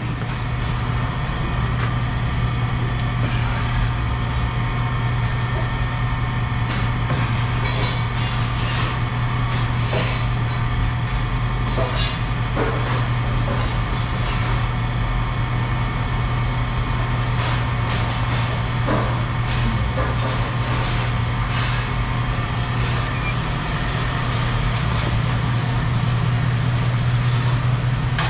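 A motor running steadily with a low hum, with scattered clanks and clicks of scrap metal being handled.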